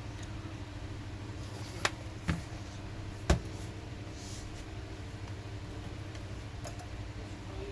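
Three sharp clicks a second or less apart, the last one loudest, from a laptop and tools being handled, over a steady low hum.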